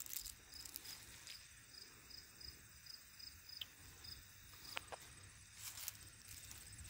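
Faint crickets chirping: a high, even chirp repeating steadily a few times a second, with a finer, higher insect trill behind it and a few soft clicks.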